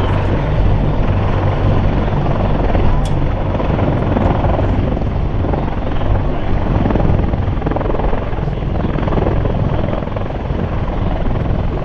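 Military helicopter flying, its rotor and turbine engine noise loud and steady with a low drone underneath.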